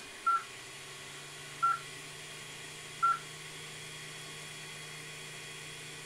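Creality CR-10S Pro V2 3D printer's touchscreen beeping three times, about a second and a half apart, as its on-screen buttons are pressed. A steady low hum comes in about a second in.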